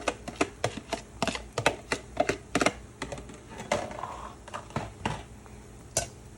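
A cooking utensil knocking and scraping against a pan as chicken pieces are stirred into a sticky honey-lemon sauce: a quick, irregular run of clicks that stops about five seconds in, with one more knock near the end.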